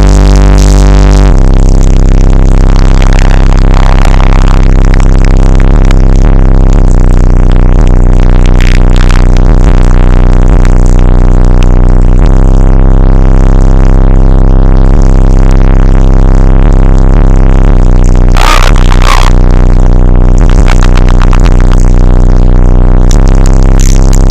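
Bass-heavy electronic music played at full volume through a high-power car sound system, the level pinned at its maximum, with deep bass notes held for long stretches. A short burst of noise cuts through about eighteen seconds in.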